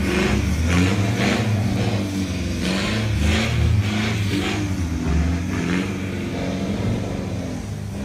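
Toyota Hilux pickup engine revving hard in repeated surges as the truck climbs a muddy dirt track under load, fading somewhat as it pulls away near the end.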